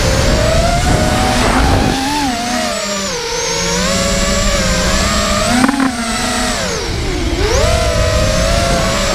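Electric motors and propellers of a small remote-controlled drone, heard from its onboard camera, whining steadily. The pitch rises and falls as the throttle changes and sweeps down and back up about seven seconds in, with wind rushing over the microphone in the first couple of seconds.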